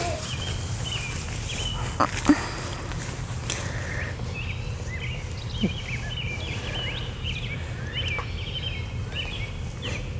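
Small birds chirping, with many short quick notes that slide up and down in pitch, over a steady low rumble. Two sharp clicks come about two seconds in.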